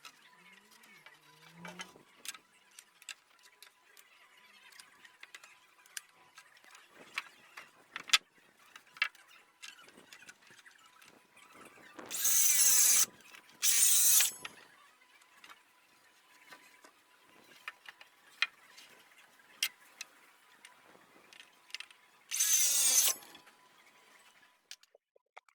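A steel tape measure being pulled out and run back in: three short, loud rasping whirrs, two close together about halfway through and one near the end. Between them come scattered light clicks and knocks of handling timber.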